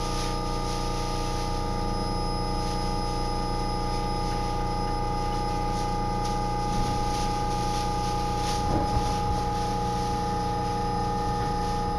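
Steady electrical hum of a commuter electric train stopped at a station, with several fixed tones held throughout. A dull knock comes about nine seconds in, and near the end a faint rising whine starts as the train begins to pull away.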